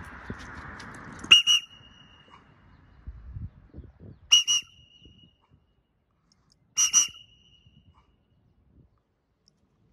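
A whistle blown in three short, sharp double blasts a few seconds apart, each ending in a brief held note: a recall signal calling a flying pet bird home. A rushing noise fills the first second or so.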